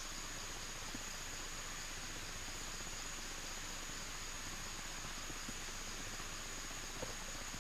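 Steady high-pitched insect chorus of forest crickets or cicadas, an unbroken drone over a soft hiss, with a couple of faint ticks.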